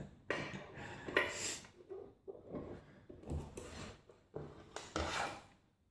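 Small metal lockpicking tools and a mortise lock cylinder being handled: a series of light, irregular clicks, taps and scrapes.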